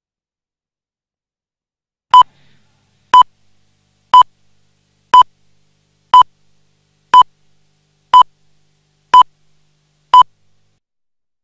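Nine short, identical electronic beeps, one each second, in dead silence. Each is a single steady tone of the same pitch, like a timing pip.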